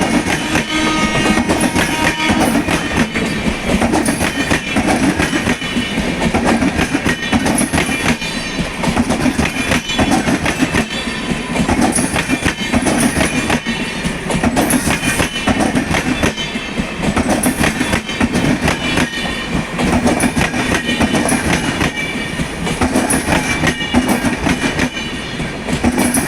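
Indian Railways express train running past, its coach wheels clattering steadily and continuously over the rail joints.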